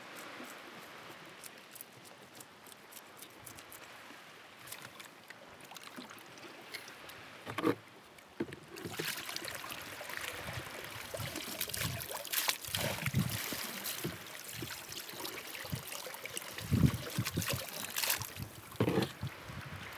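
Water sloshing and splashing in a small wooden boat as a bucket of water is tipped out, with knocks and thumps against the hull from handling. Before that, about the first eight seconds hold only faint water lapping and small clicks, with one sharp knock just before the splashing starts.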